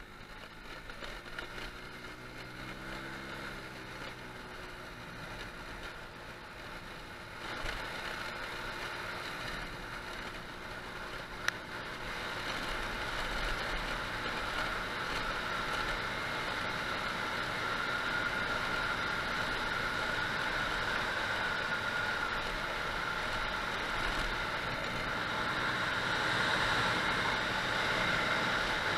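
Motor scooter engine running under way, its pitch rising briefly a few seconds in, with wind and road noise that grow louder as the scooter speeds up. There is a single sharp click about midway.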